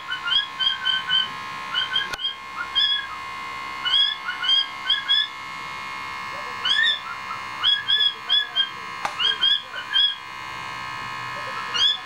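Cockatiel chirping: quick runs of short rising notes, four or five at a time with brief pauses between runs, over a faint steady hum.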